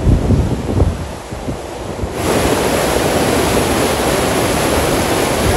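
Flash-flood torrent of muddy water rushing down a rocky ravine bed, with wind buffeting the microphone in gusty low rumbles. About two seconds in it switches to a louder, steady rush of whitewater rapids close by.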